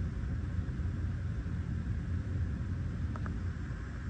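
Steady low rumble of background noise, with two faint quick clicks about three seconds in.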